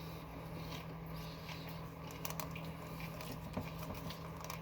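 A person chewing a sub sandwich close to the microphone: soft wet mouth sounds with a few light clicks, over a steady low hum.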